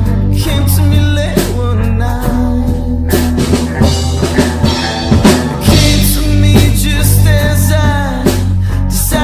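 Rock band playing a song: drum kit hits over steady bass notes, with guitar and melodic lines sliding up and down.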